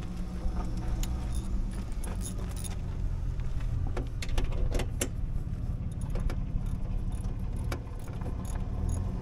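Bobcat skid steer's diesel engine idling steadily, with scattered light metallic clinks and clicks from hand work on the engine.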